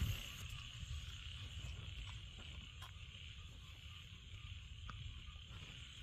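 A steady chorus of frogs calling after rain, with a low rumble underneath.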